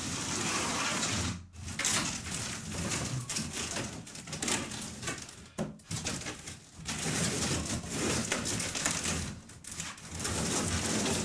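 Corrugated cardboard bed sections being handled and pushed into place on the floor, with steady scraping and rustling of cardboard broken by a few brief pauses.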